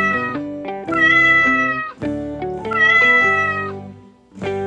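Domestic cat meowing: the end of one long meow, then two more long, drawn-out meows, over cheerful background music.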